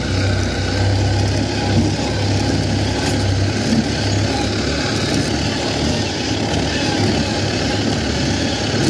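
Farm tractor's engine running steadily as it hauls a load of rice sacks along a rough dirt track, heard from on board the tractor.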